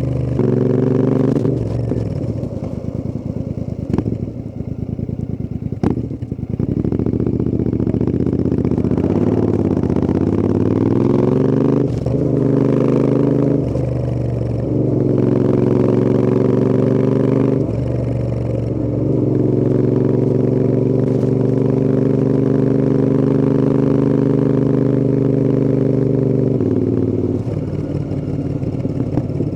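Royal Enfield Interceptor 650's parallel-twin engine and exhaust running on the road, the engine note dipping and climbing several times through gear changes and throttle, then holding a steady cruise before falling away near the end. A few sharp clicks early on.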